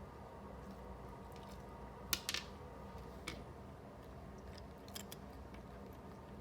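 A few short, crisp crunching clicks from a cat snack, the loudest cluster about two seconds in and fainter ones later, over a faint steady hum.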